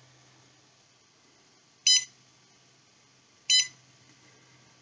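Cocoon Create 3D printer's touchscreen beeping as menu buttons are pressed: two short, high beeps about a second and a half apart.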